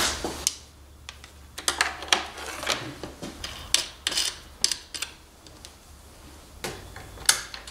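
Irregular metallic clicks and taps of hardware and a hand tool on a car battery's terminals as the cable connections are fastened, with a sharper click near the end.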